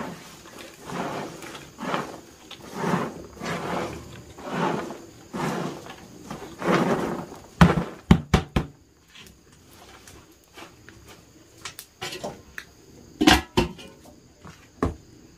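Handfuls of shredded stalks scraped off a woven bamboo tray into a large metal pot, a soft swish about once a second. Then a quick run of sharp knocks as the tray is tipped and tapped on the pot rim, and one loud clank of the metal lid going onto the pot about 13 seconds in.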